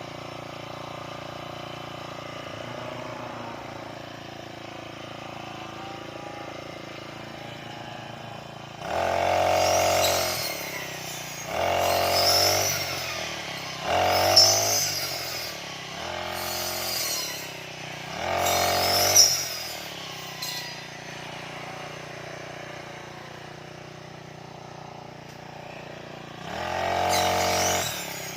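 Grass-cutting machine (brush cutter) idling steadily, then revved up hard about six times, each rev lasting a second or so, as it cuts grass.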